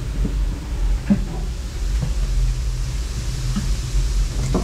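Steady hiss over a low rumble, with a few faint short knocks and voice fragments.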